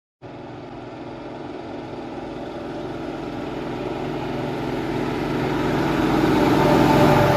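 A vehicle engine running steadily and growing louder over several seconds.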